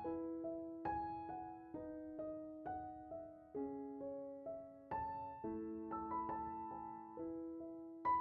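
Soft background piano music: single notes and chords, each note struck and left to die away.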